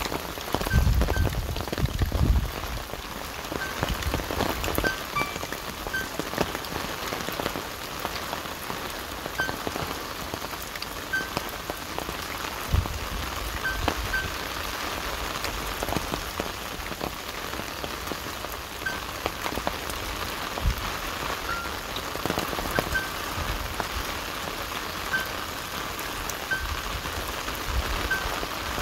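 Rain falling on leaves and undergrowth: an even hiss with many scattered drops ticking, and a few low bumps in the first couple of seconds.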